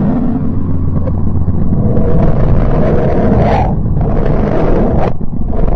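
A 'planet sound' of the kind made by turning space-probe recordings into audio: a loud, deep rumbling noise that swells with a hiss until it stops short about three and a half seconds in, then breaks off again just after five seconds.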